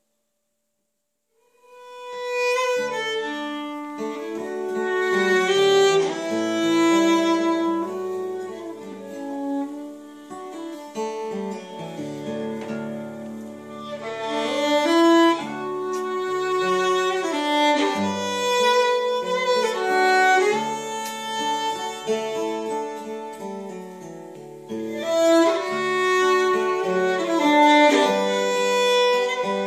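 Five-string fiddle playing a slow melody with long held notes over acoustic guitar accompaniment, starting after a short silence about two seconds in.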